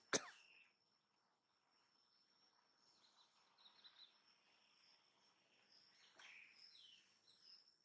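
Faint ambience: a steady high-pitched insect drone, with a few faint downward chirps and one sharp click right at the start.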